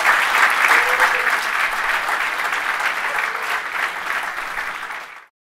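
A seated audience applauding, dense steady clapping that cuts off suddenly about five seconds in.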